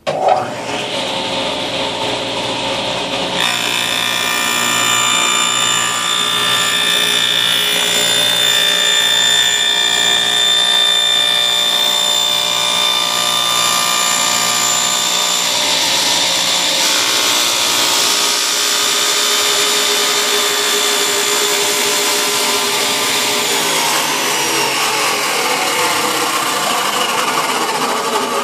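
Table saw switched on and running, its blade cutting through the sheet base of a new miter sled with a steady, loud whine.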